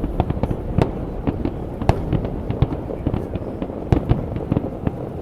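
Fireworks display: a rapid, irregular string of exploding shells over a continuous low rumble, with louder bangs about a second in, near two seconds and near four seconds.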